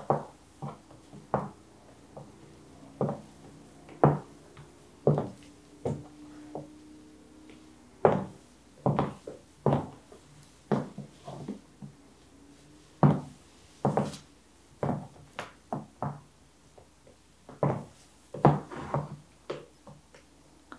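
Stiletto heels of Casadei Blade pumps clicking on a wood-look laminate floor as a woman walks and turns. The steps are uneven, sharp single clicks, with short pauses between bursts of steps.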